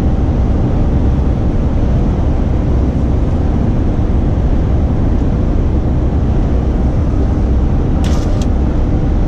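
Renault Trucks T-range lorry at cruising speed heard from inside the cab: a steady low engine drone mixed with road noise. There is a brief sharper rustle or click about eight seconds in.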